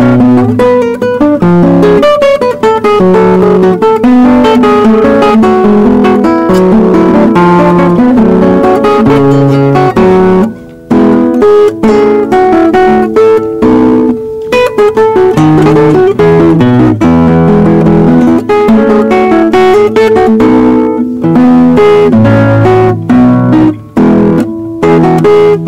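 Solo classical (nylon-string) guitar played fingerstyle: a flowing piece with a moving bass line under a melody, with short pauses about ten seconds in and near the end.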